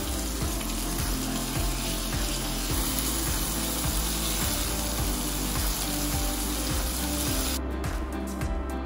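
Floured chicken breast pieces sizzling in hot butter and oil in a frying pan, a dense steady hiss that cuts off suddenly about a second before the end. Background music with a steady beat plays underneath.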